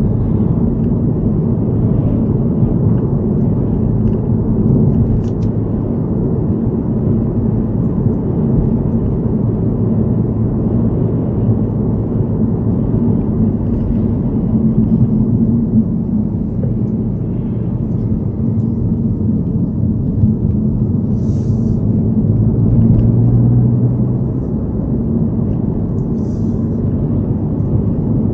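Steady road and engine rumble inside a moving car's cabin, with a low hum that swells briefly a little over 20 seconds in.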